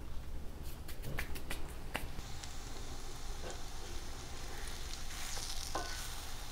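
Ripe plantain slices frying in butter in a hot skillet: a few sharp crackles and pops in the first two seconds, then a steady fine sizzle with occasional small pops.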